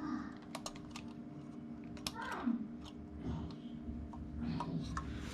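Scattered small clicks and taps of hands handling cable ends and terminal screws, over a steady low hum. A brief murmured vocal sound comes about two seconds in.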